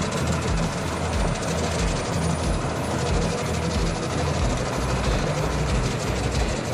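Large Albach Diamant 2000 drum wood chipper running and chipping, a loud, steady machine noise with a regular low pulsing beat and clatter.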